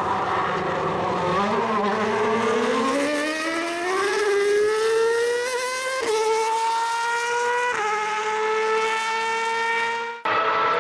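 2015 Formula One car's 1.6-litre turbocharged V6 engine accelerating hard. Its pitch climbs steadily, then drops twice in quick steps as the car upshifts, with a brief sudden break near the end.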